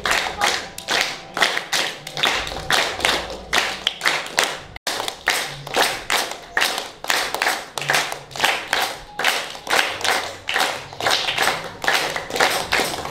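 Group hand-clapping in a steady beat of roughly two to three claps a second, the clapping that keeps time in a capoeira roda. It drops out for an instant about five seconds in.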